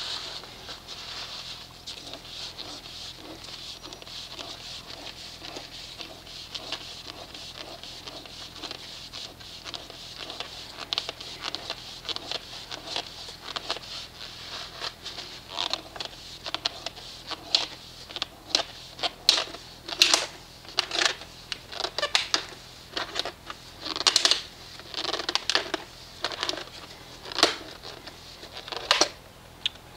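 Hand-turned oil filter cutter biting around the steel can of a used oil filter: a faint steady scraping at first, then from about halfway a run of sharp, irregular clicks and scrapes, one or two a second.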